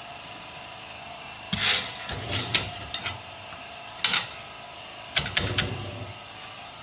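Short knocks and rubbing scrapes of hands and a utensil working bread dough on a wooden board, in four brief clusters.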